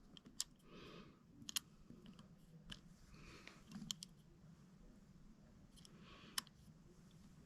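Faint scattered clicks and taps, about six over several seconds, with soft rustles between: small metal parts and a measuring tool being handled on a bench.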